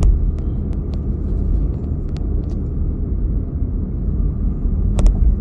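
Car driving at speed on a highway, heard from inside: a steady low rumble of road and engine noise, with a few faint clicks and a sharper click about five seconds in.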